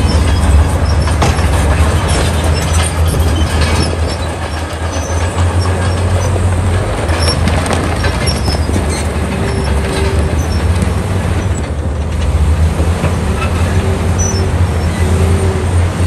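Heavy diesel construction machinery at work: a deep, steady engine drone with scattered clanks and scraping, and a faint whine that comes and goes in the second half.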